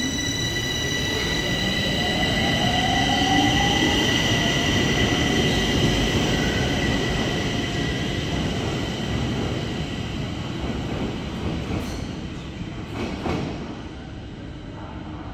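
Bucharest Metro train pulling out and accelerating, its traction motors giving a rising whine over a steady high squeal from the wheels, growing louder and then fading as it moves off. A few knocks come near the end.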